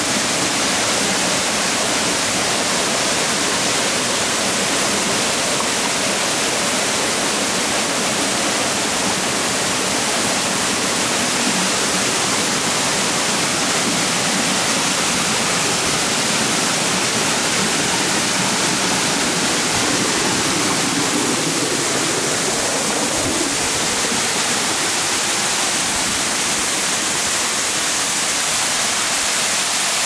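Steady rush and hiss of Yamabiko Falls, a slender waterfall falling from a rock overhang and splashing onto mossy boulders at its base.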